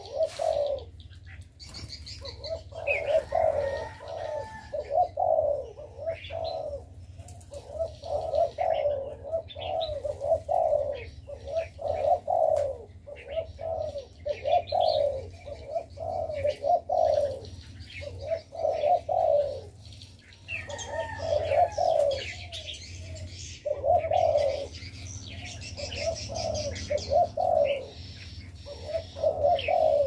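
Several doves cooing over and over in rolling phrases, with small finches chirping higher up between them, over a faint low hum.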